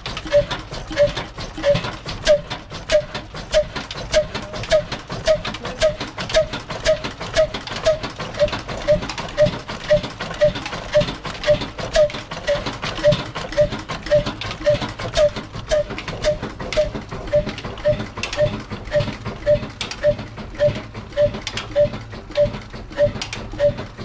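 A desi copy of a Ruston single-cylinder horizontal engine, with a heavy flywheel, running slowly and evenly at about two beats a second. Each beat carries a short ringing note. The engine is driving a flour mill (chakki) by a flat belt.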